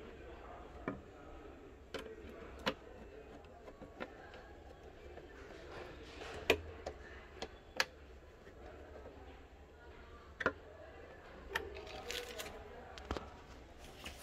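Scattered small clicks and knocks of a screwdriver on a side screw and a plastic LED panel light housing being handled on a wooden tabletop.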